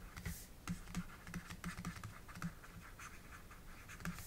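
Stylus tapping and scratching on a pen tablet while words are handwritten: a quick, irregular run of light clicks and short scratches.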